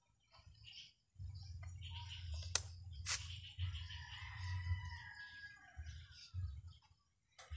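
A faint rooster crowing once, a long call in the middle, among scattered small-bird chirps. There are two sharp clicks about two and a half and three seconds in, and a low rumble from about a second in.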